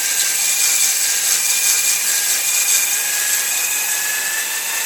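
Electric drill running steadily, spinning a stone cylinder hone inside a bore of a Saab 99 Turbo four-cylinder engine block: a motor whine that rises slightly in pitch over a steady grinding hiss of the stones on the cylinder wall. The bore is being honed to remove scratches, nicks and a lip at its lower edge and to leave a crosshatch finish.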